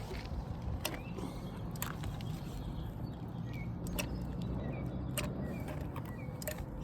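A low steady rumble with scattered sharp clicks and taps, and a few short high chirps.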